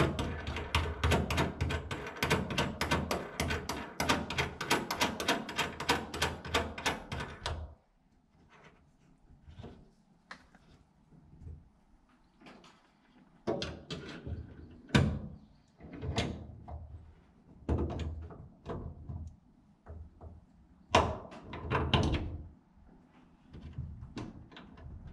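A hand tool working a brass pipe fitting on a steel hull: a fast, even run of clicks that stops abruptly about eight seconds in, followed by scattered knocks and scrapes of metal being handled.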